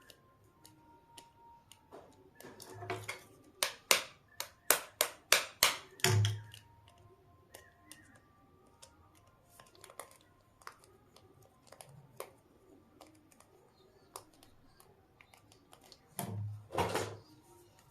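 A screw being knocked straight into a bamboo handle: a quick run of about seven sharp taps, then scattered lighter clicks and a short scraping burst near the end as the screw is worked in.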